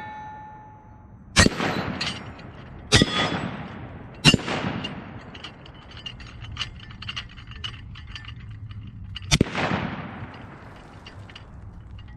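Four rifle shots, each followed by a short echo: three about a second and a half apart, then a fourth about five seconds later.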